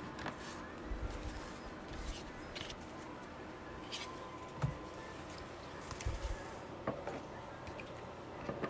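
Trading cards and their cardboard packaging being handled: soft rustling with a scattered run of light clicks and taps, over a faint steady hum.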